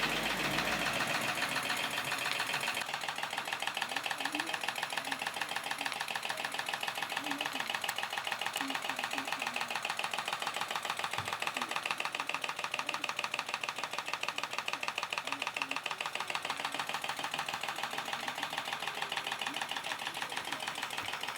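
Stuart 10V single-cylinder model steam engine running steadily under steam, a fast, even beat of exhaust strokes. A slight knocking noise comes with it on this first run after reassembly; the owner says the knock needs attention and the valve timing needs setting.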